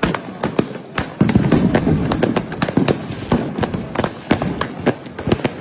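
New Year's Eve firecrackers and fireworks going off: sharp bangs several times a second, irregular and overlapping, over a continuous rumble of further bangs.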